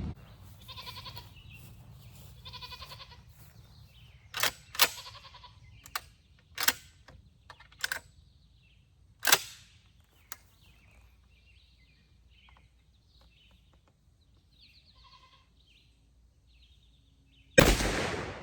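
A 20-gauge Beretta A400 Xplorer semi-automatic shotgun fires a single 3-inch 1 oz #2 TSS shell near the end, one loud blast with a short echo. Before it come several sharp clicks and knocks, and a few faint short bleat-like calls early on and about three-quarters through.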